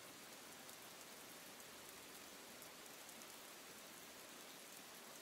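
Faint, steady rain falling on a hard wet surface, with tiny scattered drop ticks.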